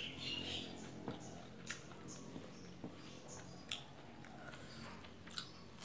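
Faint chewing and mouth clicks of a person eating by hand, with scattered short clicks and light handling of food on a banana leaf.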